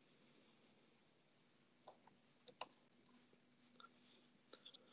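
A high-pitched chirping tone, repeating evenly about twice a second, with a faint click about two and a half seconds in.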